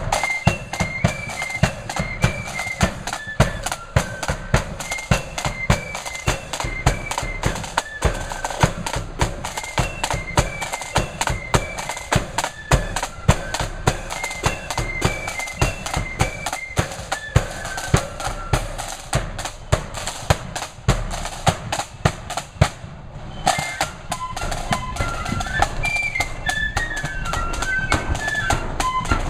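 Marching flute band playing a tune: flutes carry the melody in unison over rapid snare drum rolls and bass drum beats. A little before the end the flutes break off for about a second while the drums carry on, then come back in.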